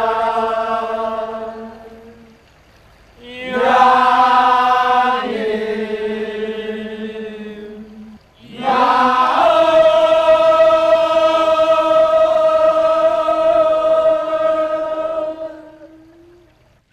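Vocal chanting in long held notes, with no instruments. There are three phrases: the first fades out about two seconds in; the second steps down in pitch partway through; the third opens with an upward swoop about eight seconds in, then holds one steady note until it fades near the end.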